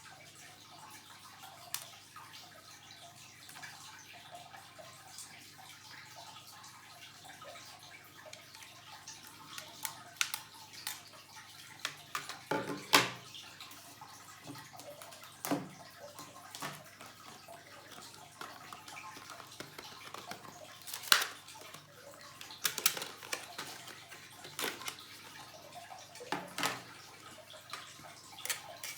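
Laptop parts and tools being handled during an SSD upgrade: scattered small clicks and taps over a steady hiss, with two sharper knocks about a third and two-thirds of the way through.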